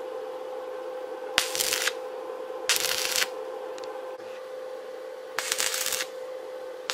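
Stick welder striking an arc on rusty steel pipe to tack a bar in place: three short bursts of sizzling arc crackle, each about half a second, over a steady hum.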